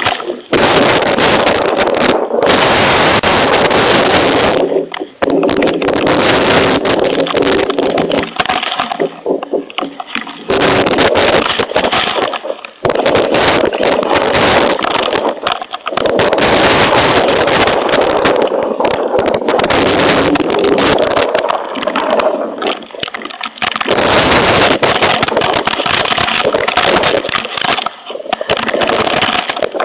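Hailstorm pelting down in a loud, dense clatter of hailstone and rain impacts on a hail protector, easing briefly a few times.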